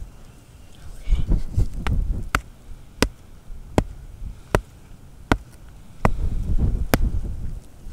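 A run of sharp taps, about one every three-quarters of a second, with two stretches of low rumbling handling or wind noise on the microphone.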